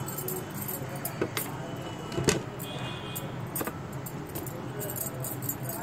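Light clinking and jingling with a few sharp clicks, the loudest about two seconds in, while a silicone basting brush is handled over a plate and a small bowl of melted lemon butter; a steady low hum sits underneath.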